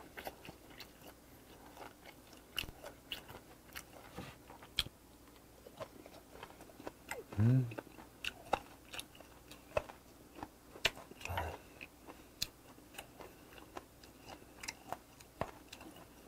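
Close-miked chewing of fermented skate (hongeo): irregular wet mouth clicks and small crunches. A short hummed "mm" about halfway through, the loudest sound, and a fainter one a few seconds later.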